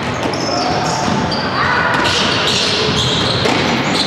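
Basketball game on an indoor court: the ball bouncing on the floor and sneakers squeaking in short high-pitched chirps, over distant players' voices echoing in a large hall.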